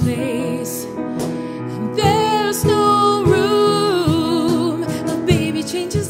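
A woman singing a slow ballad with vibrato, her phrase swelling about two seconds in, over sustained accompaniment and soft, evenly spaced percussion beats.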